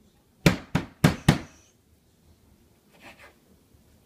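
Metal meat tenderizer mallet pounding boneless pork slices on a wooden cutting board: four quick, sharp blows in the first second and a half.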